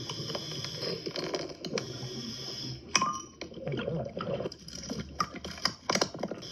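Underwater recording: irregular clicks and clinks, the sharpest about three seconds in and near the end, over low gurgling bubbles. These are typical of a scuba diver's exhaust bubbles and of objects being handled on a riverbed.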